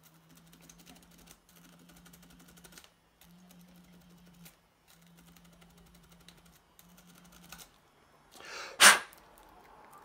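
A toothbrush wet with isopropyl alcohol scrubbing around an iPhone 11's charge port to clear out pocket dirt, in faint scratchy strokes that come in several stretches of a second or so each. Near the end comes one short, loud rushing burst of noise.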